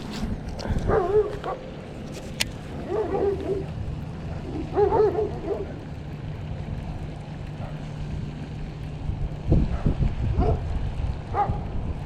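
A dog whining, three drawn-out wavering cries about two seconds apart, over low wind rumble on the microphone.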